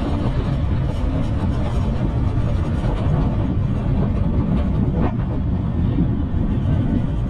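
Steady wind rush on the microphone with road and engine noise from a motorbike riding along a road, unbroken throughout.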